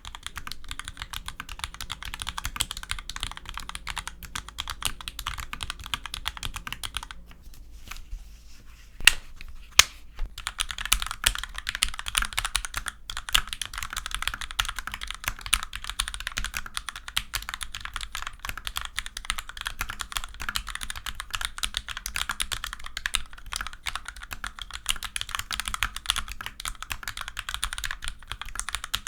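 Steady fast typing on a mechanical keyboard with vintage Cherry MX Black linear switches, cleaned and unlubed, under low-profile doubleshot keycaps: a dense run of key clacks. About eight seconds in the typing pauses briefly, broken by two louder single clacks, then picks up again.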